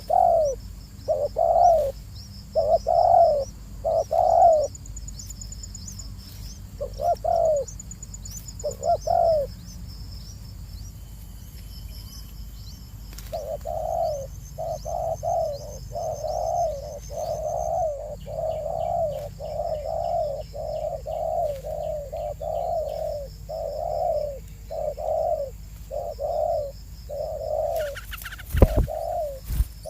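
A bird's low calls, repeated: a few spaced calls at first, then a steady run of about one call a second from about halfway in. Faint high chirping sounds above them, and there is a sharp knock near the end.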